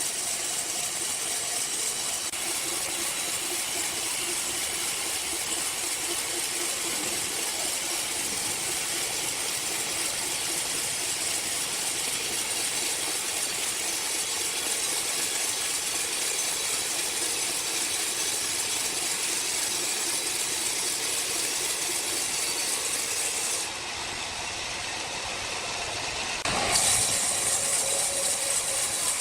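Sawmill machinery running with a steady hissing mechanical noise. It changes abruptly about 24 s in and turns louder from a sharp break about 27 s in.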